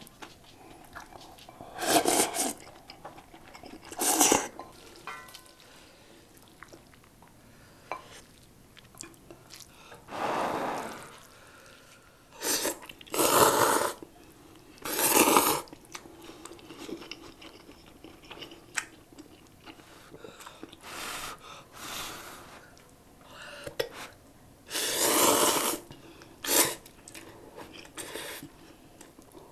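Close-miked eating of spicy instant ramen: a series of short, loud slurps of noodles and broth, with quieter chewing between them.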